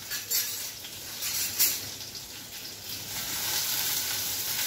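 Crushed garlic and slit green chillies frying in hot oil in a steel kadhai: a few sharp clinks at first, then a steady sizzle that builds from about halfway through as they are stirred.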